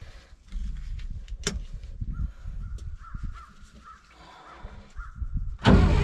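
International DT466 six-cylinder diesel in a Hough H80B wheel loader turning over on its starter for about five seconds, a cold start with no glow plugs to help, then firing up and running, much louder, near the end.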